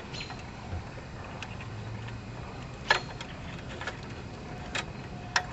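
A few sharp, isolated clicks and knocks of hand tools on metal bolts and brackets during work on a tractor's transaxle mounting, over a low steady hum.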